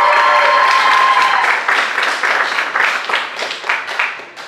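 Audience applauding an award winner, with a high-pitched cheer held over about the first second. The clapping thins out and stops near the end.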